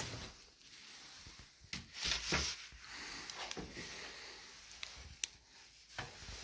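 Close handling noise: fabric and gear rubbing and rustling, broken by a few short sharp clicks and knocks, as hands move fishing rods, a rod bag and a net against a wall.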